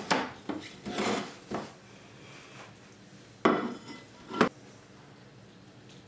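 Clatter of a wooden cake board and a plastic cake carrier base being handled and set down on a worktop: a few light knocks and a scrape in the first two seconds, then two sharp knocks about a second apart.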